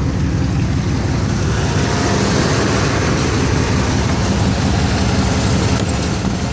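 2003 Dodge Ram 1500's engine idling steadily under the load of the A/C compressor while the air conditioning is being recharged, with an even rushing hiss over the hum.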